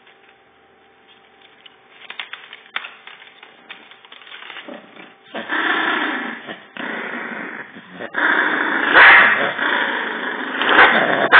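A Yorkshire terrier growling over a paper tissue held in its mouth. It is a rough, continuous growl that starts about halfway through and swells louder twice near the end, after a stretch of light rustling and clicks.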